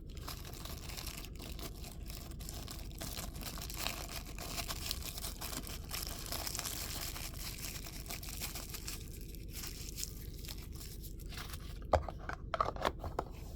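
Knife packaging being crinkled and torn open: a steady run of small crackles and rustles, with a sharper tap about twelve seconds in.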